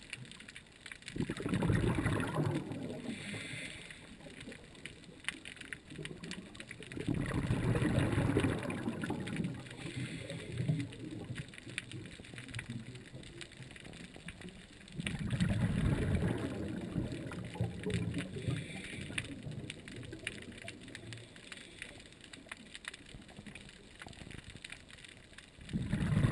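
Underwater sound of a scuba diver breathing: exhaled bubbles bursting from the regulator in four rumbling, gurgling surges about seven seconds apart. A faint crackle of small clicks fills the gaps between breaths.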